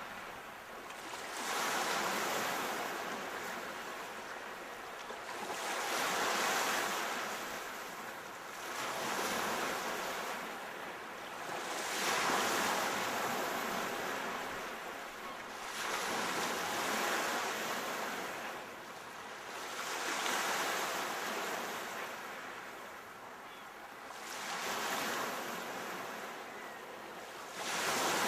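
Sea waves breaking on a shore: a rush of surf that swells and falls away every three to five seconds.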